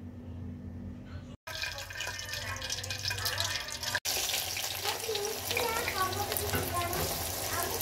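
Hot oil sizzling and crackling in a pressure cooker with sliced onions frying in it. It starts after a cut about a second and a half in and gets louder about four seconds in. Faint voices are in the background.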